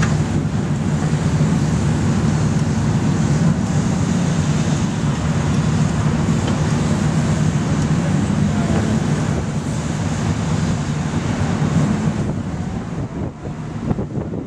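Many race car engines running together as a field lines up and rolls off, a steady low drone, mixed with wind buffeting the microphone.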